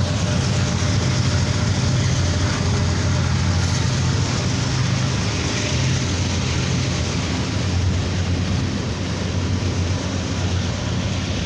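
Railroad tank cars of a long freight train rolling past at close range: a steady rumble of steel wheels on the rails.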